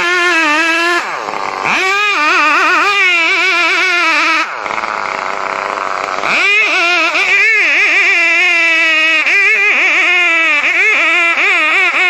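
Stihl chainsaw running hard while cutting, its pitch wavering and dipping again and again as the chain bites into the wood, then picking back up. It drops away briefly about a second in and for nearly two seconds mid-way, leaving a rougher, noisier sound.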